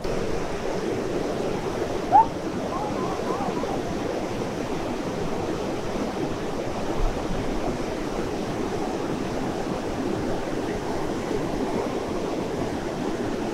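Mountain river rushing steadily over rocks, with one short rising squeak about two seconds in.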